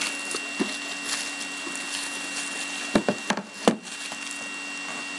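Plastic shrink wrap being torn off a card box and crumpled by hand: continuous crinkling and crackling, with three sharp crackles about three seconds in. A faint steady hum lies underneath.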